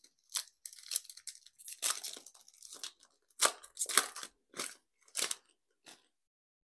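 Foil wrapper of an Upper Deck Allure hockey card pack being torn open and crinkled: a string of short crackling rips, loudest a little past halfway, stopping about six seconds in.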